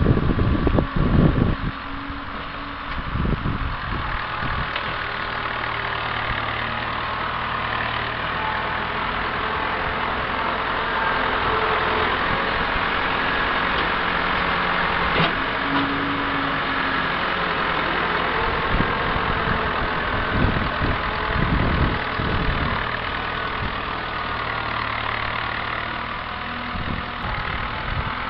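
International Harvester 584 tractor's engine running as it pushes compost with its front loader, growing louder in the middle as the tractor comes near. Wind buffets the microphone in the first couple of seconds.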